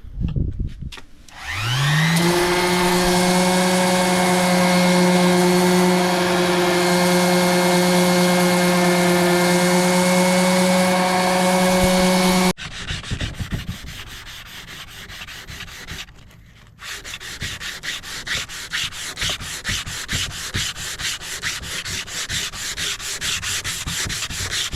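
Electric sander spinning up to a steady whine and running on wood, stopping abruptly about halfway through. Then, after a brief pause, rapid back-and-forth rubbing strokes of sanding wood by hand.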